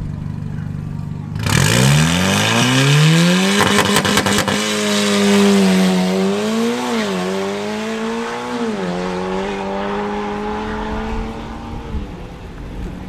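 Volkswagen Golf 7 R's turbocharged 2.0-litre four-cylinder launching off a drag strip start line. It is held at steady revs, then goes suddenly loud about a second and a half in, the engine note climbing fast. A few sharp cracks come a couple of seconds later, the note dips twice as it changes up, and the sound fades as the car pulls away down the strip.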